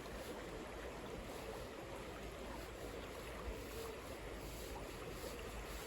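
Steady rush of a mountain stream's flowing water, with a single faint click about three and a half seconds in.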